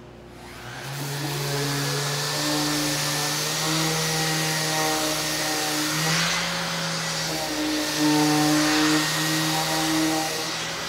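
Random orbital sander and its hose-connected dust extractor starting up about a second in, then running steadily as the sander is worked over a wooden slab, the motor pitch wavering slightly with the pressure.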